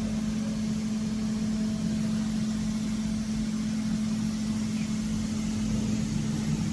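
Two-spindle drilling machine running, a steady hum over a hiss of machine noise.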